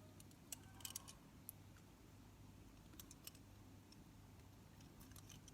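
Faint, scattered light clicks of small plastic model-kit parts being handled and pressed together, over a faint steady low hum.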